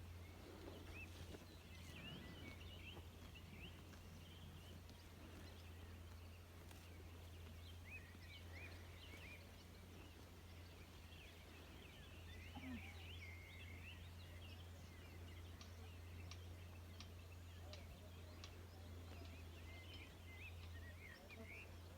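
Faint, scattered chirping of birds over a steady low hum.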